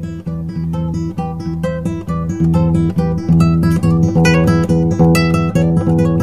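Background music of rapid plucked-string notes over a steady held low note.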